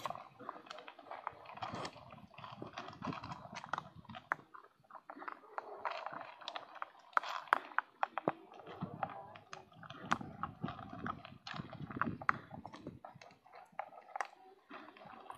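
Dogs crunching dry kibble, a dense, irregular run of sharp crunches and clicks.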